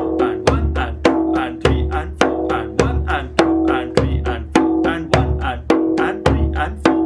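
Djembe played solo in a steady eighth-note groove: deep bass strokes on beats 1 and 3, sharp slaps on 2 and 4, and soft tones filling every 'and' in between, about three and a half strokes a second. The drum's ring dies away at the very end.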